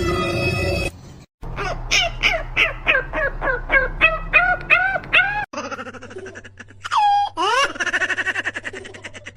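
An animal calling: a quick run of short, rising-and-falling pitched calls, about three a second, then a few longer calls that glide up and down in pitch.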